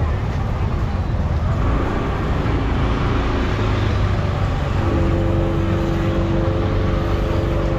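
Road traffic with vehicle engines running and a steady low rumble; about five seconds in, a steady pitched engine hum joins.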